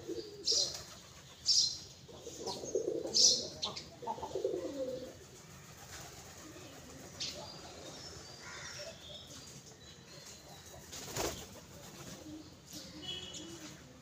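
A flock of pigeons flapping their wings and cooing, with several wing flaps close together in the first five seconds. It is quieter after that, with one more sharp flap about eleven seconds in.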